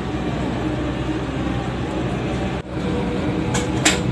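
Steady low hum and rumble inside a passenger train coach standing at a station platform, with two short sharp clicks near the end.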